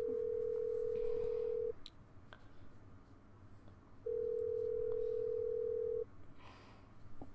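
Telephone ringback tone of an outgoing call ringing at the other end, not yet answered: a steady tone of about two seconds, heard twice with a pause of about two seconds between.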